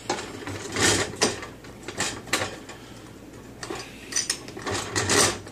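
Deep fryer basket and bowl knocking and clattering against each other as they are handled, a run of irregular sharp clicks and knocks.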